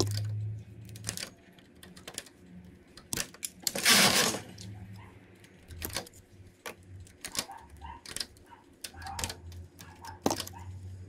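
Light, irregular clicks of metal knitting-machine needles and a hand transfer tool against the needle bed as stitches are lifted off and crossed by hand to form a cable, with a brief louder scrape about four seconds in.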